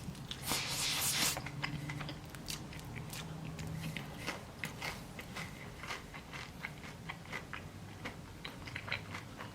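Crispy Korean fried chicken being bitten and chewed: a loud crunch about half a second in, then a run of small crackles from the crisp coating during chewing.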